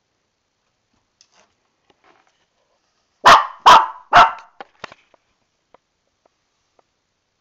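Shih Tzu puppy barking three times in quick succession, about half a second apart, a little over three seconds in. The owner puts the barking down to anger at being about to get a bath.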